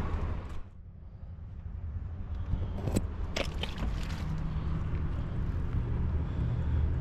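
A stab coupling being pushed onto a reamed gas line: a few sharp clicks and scrapes about three to four seconds in, over a steady low rumble.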